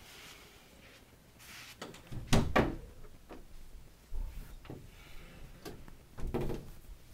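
Interior door being opened and shut, with knob and latch clicks and knocks. The loudest is a close pair of knocks about two and a half seconds in, with more clatter around four and six seconds in.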